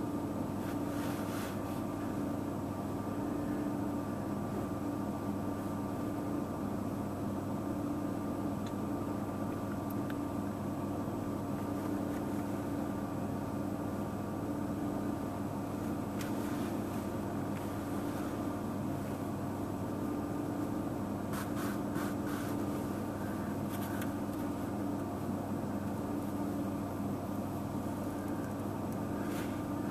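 A steady mechanical hum holding several fixed tones, with a few faint brief rustles in the second half.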